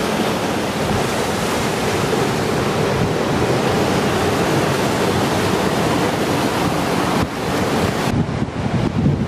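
Storm-surge surf churning and washing over a sea wall, a loud steady rush of breaking water, with wind buffeting the microphone. Near the end the hiss of the water drops away and gusty wind rumble takes over.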